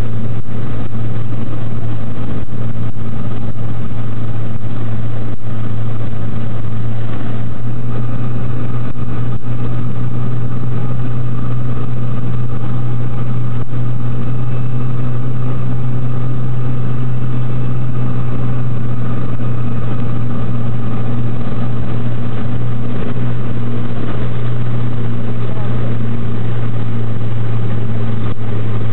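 Light aircraft's wing-mounted propeller engine heard from inside the cabin, a steady deep drone with a higher hum over it, as the plane descends on approach to the runway.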